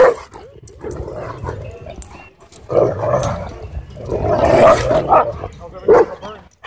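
Large dogs barking in several loud bursts as they wrestle and mouth at each other at close range.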